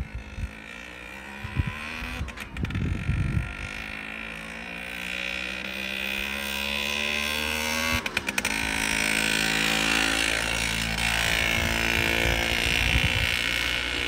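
Romet Ogar 200 moped's small Jawa two-stroke engine running under way, the note getting louder and steadier as the moped rides closer. Two sharp clicks, near the start and about halfway through.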